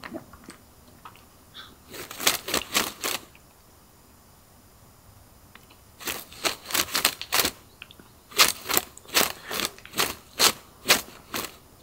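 Runs of quick, sharp scratching or clicking strokes, two to three a second, in three bursts with quiet gaps between them.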